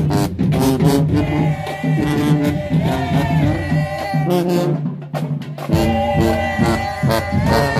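Marching band playing a funk tune: sousaphones carry the bass line under brass and woodwinds, with regular drum hits. The low bass drops out for about a second and a half a little past halfway, then comes back.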